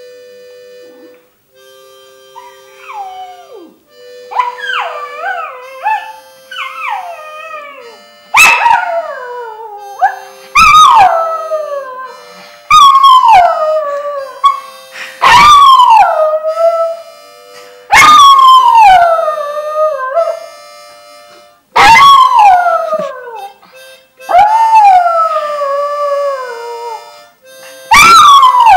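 Small dog howling along to a harmonica: after a few wavering whines it gives a string of long howls, each starting high and sliding down in pitch, about every two to three seconds. Steady harmonica notes play under the howls.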